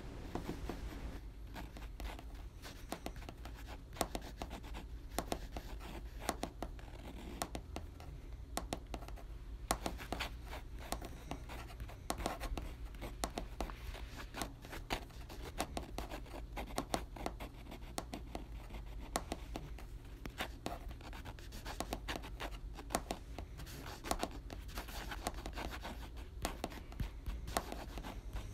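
Irregular scratching and clicking, like a pencil or pen on paper, over a steady low hum.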